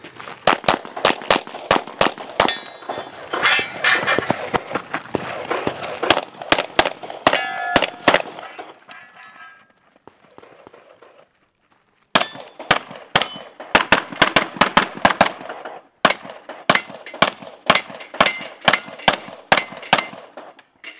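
Rapid strings of 9mm pistol shots from a Glock 34, with steel targets clanging and ringing when hit. The shooting stops for about three seconds near the middle, then starts again in fast strings.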